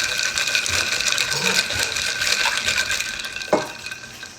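Drink mix being stirred into a large cup of ice water, the ice cubes rattling and clinking against the cup, ending with a sharp click about three and a half seconds in.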